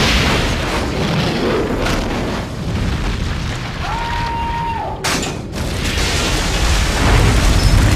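A car exploding in a fireball: a dense, continuous blast rumble with strong low end. A short steady tone sounds about four seconds in, and another sharp burst comes about five seconds in.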